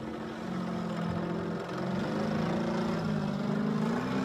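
Radio-controlled model airplane's motor droning in flight, its pitch rising and falling as it manoeuvres.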